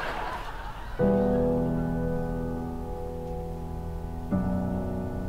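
Sad background piano music: a sustained chord struck about a second in, and a second chord about four seconds in, each left to ring and fade slowly.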